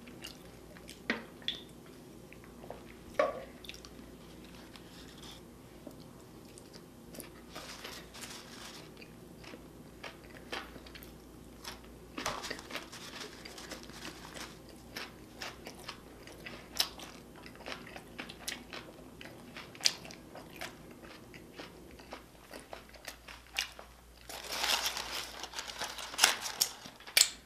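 Close-miked chewing and biting: wet mouth clicks and smacks scattered throughout, with louder stretches about twelve seconds in and again near the end.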